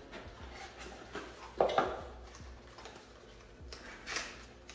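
Cardboard packaging being handled during unboxing: two quick knocks close together about one and a half seconds in, then a short scraping rustle near the end as a small boxed part is lifted out.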